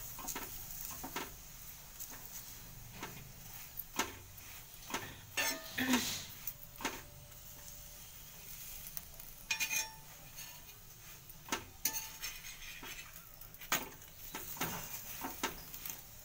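Paratha sizzling softly in oil in a pan, while a steel spoon scrapes and taps against the pan as it presses and turns the bread, giving scattered clicks and scrapes.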